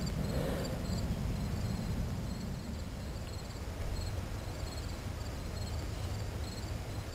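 Faint insect chirping, a high pulse repeating evenly, over a low steady rumble.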